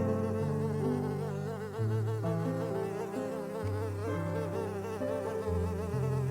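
A flying insect buzzing steadily, its pitch wavering up and down, over a backing of low held music notes.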